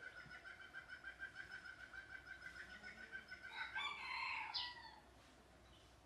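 Red junglefowl rooster crowing once, a short harsh crow of about a second and a half starting a little past the middle. Before it, a rapid, evenly pulsed trill from another animal runs in the background and fades as the crow begins.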